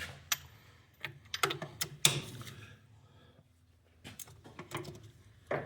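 Irregular metallic clicks and taps of hand tools working the bolts of a tractor clutch's pressure plate, the loudest about two seconds in and another sharp one near the end.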